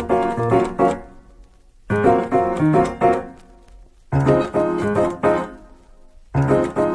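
Background music: short piano-like keyboard phrases played three or four times, each a quick run of chords that fades away before the next one begins.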